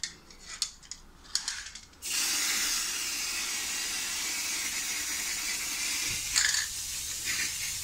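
Aerosol spray-paint can spraying. A few clicks come first, then a steady hiss starts about two seconds in. Near the end the spray turns uneven and sputters as the can runs low.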